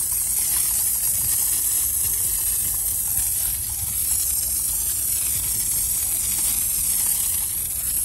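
Hand-pump pressure sprayer hissing steadily as it sprays a foaming pre-treatment cleaner onto the car's lower panels and wheel arch.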